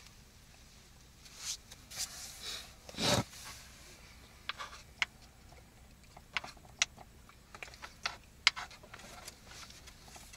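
Eating from a frying pan: scattered light clicks and scrapes of utensils against the pan, with a short louder rustle about three seconds in.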